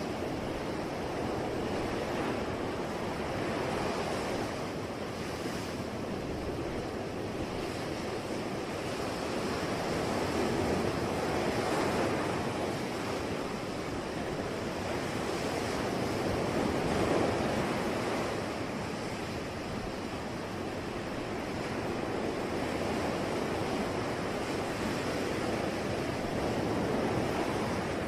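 Ocean waves breaking and washing on a shore in a continuous rush that swells and ebbs every few seconds.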